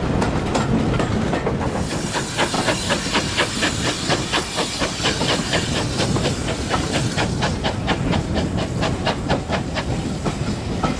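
GWR 0-6-0 pannier tank locomotive hauling a train, heard from a carriage window: an even beat of steam exhaust, about three or four a second, over the rumble of the carriage wheels on the rails. A steady hiss of steam comes in about two seconds in.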